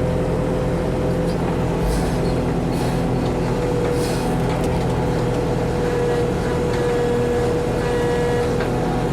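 Backhoe engine running steadily under load, with a steady whine over its hum and a few short scraping noises about two to four seconds in.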